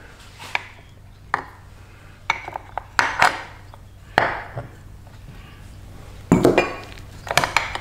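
Maytag washer transmission parts clinking and knocking as they are handled: metal shafts, a steel rack and plastic gears lifted out of the gearcase and set down. The sound is a scattering of separate knocks, with the loudest cluster a second or two before the end.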